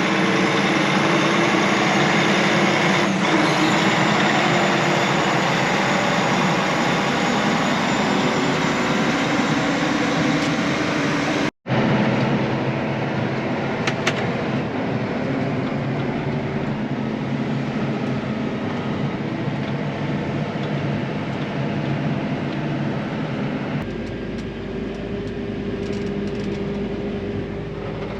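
Diesel engine of heavy farm machinery running steadily. The sound cuts off abruptly about a third of the way through, then continues as a similar steady engine sound, slightly quieter.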